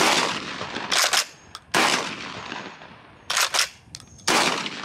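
Three 12-gauge shots from a UTAS UTS-15 bullpup pump-action shotgun, each trailing off in a long echo. Between the shots the pump is worked, heard as a quick double clack.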